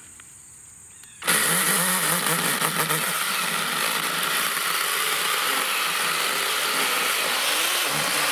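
Battery-powered NaTiddy mini chainsaw starting suddenly about a second in, then running steadily as its chain cuts through a small tree stump.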